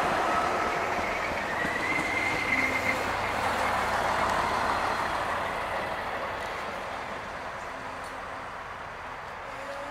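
Siemens Desiro class 642 diesel multiple unit passing close by and pulling away. Its running noise is loudest over the first few seconds, with a brief high whine about two seconds in, then fades as the train recedes.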